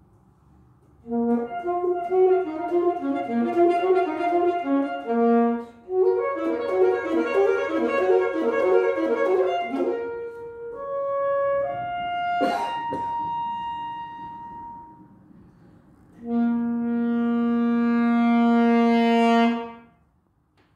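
Solo alto saxophone played unaccompanied: two fast running passages, then a rising line of short held notes and a high note that fades, with one sharp click in the middle. After a short pause it ends on one long low held note that stops cleanly near the end.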